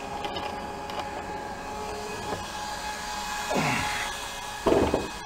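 Steady electric hum of small water pumps running to drain the pool, with a brief thump near the end.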